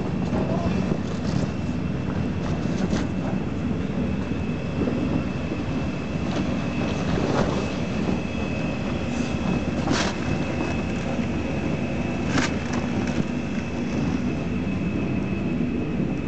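Steady drone of the electric air blowers that keep an inflatable assault course inflated, with a faint high whine over it. Two sharp knocks stand out, about ten and twelve seconds in.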